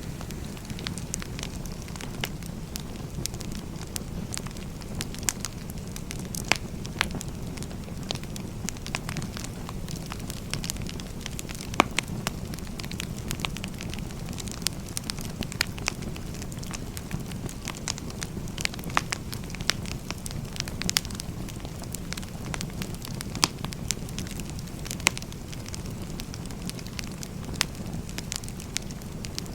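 Firewood burning: a steady low rush of flame with sharp pops and crackles scattered irregularly throughout, a few of them louder snaps, the loudest about twelve seconds in.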